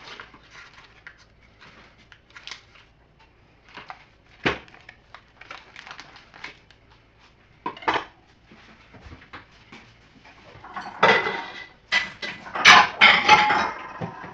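Kitchen utensils and dishes clinking and knocking as butter is cut with a knife and handled in a bowl: scattered light taps, then a louder run of clattering near the end.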